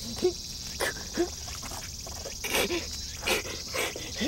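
Short yelping cries, repeated irregularly about every half second to a second, with a few sharp rustling clicks between them.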